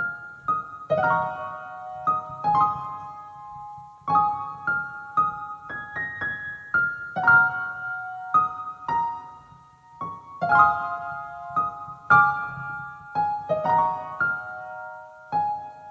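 Instrumental piano music: a gentle melody of struck notes and chords, with no singing.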